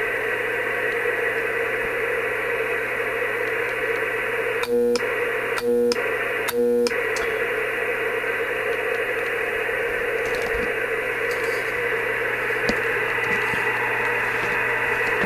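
ICOM IC-756 HF transceiver putting out a steady hiss with a hum and a whine through its speaker: the audio interference that comes with keying up, the transmit fault being chased. Three short beeps about a second apart sound about five seconds in.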